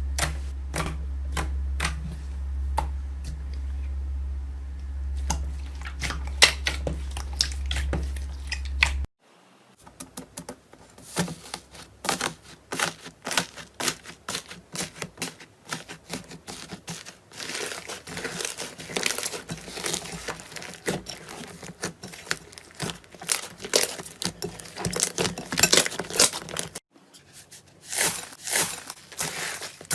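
Slime being squeezed and stretched by hand, making dense sticky crackling and popping. Three separate clips, cut about nine seconds in and again near the end; the first has a steady low hum under it.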